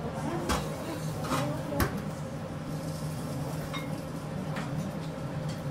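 Kitchen utensils and dishes clinking: a few sharp clicks in the first two seconds and another near four seconds, over a steady low hum of kitchen equipment.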